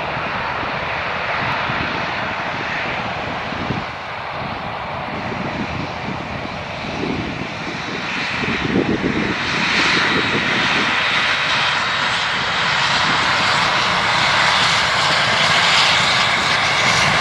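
Airbus A330-300 airliner's twin jet engines running as it moves along the runway: a steady jet rumble and hiss that grows louder from about halfway through.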